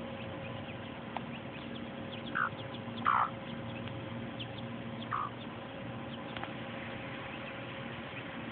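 A mother hen and her chicks: faint high peeps throughout, with three louder short calls about two, three and five seconds in, the one near three seconds the loudest, over a steady low background hum.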